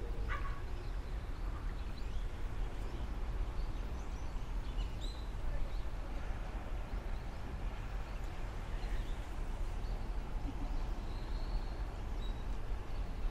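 Steady outdoor background noise with a deep low rumble, and a few brief, faint high bird chirps: one about five seconds in and another near the end.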